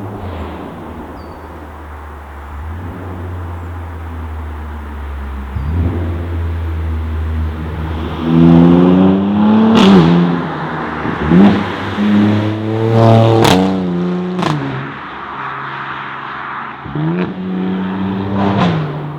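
Exhaust of a Mercedes-AMG C43 with an Aulitzky cat-back system and no particulate filter. It runs at a steady low note for several seconds, then revs hard several times, the pitch rising and falling, with a few sharp cracks in among the revs.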